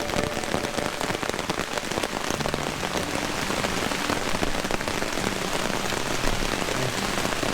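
Heavy downpour hammering on an Ozark Trail tent, heard from inside: a dense, steady patter of raindrops on the tent fabric.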